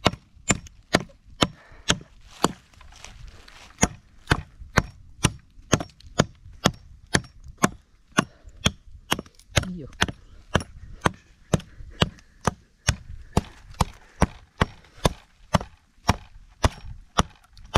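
Firewood being chopped with a bladed tool, sharp wooden chops at a steady pace of about two strokes a second.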